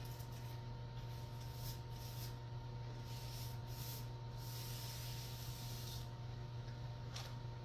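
Paint being spread on a wall: a series of short swishing strokes and one longer stroke about four and a half seconds in, over a steady low hum.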